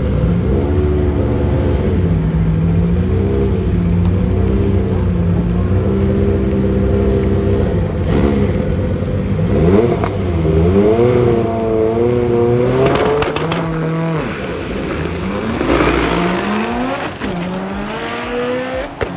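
A drag car's engine revving in short blips at the start line, then launching about eight seconds in. Its pitch climbs and drops through several gear changes as it pulls down the strip, growing fainter near the end.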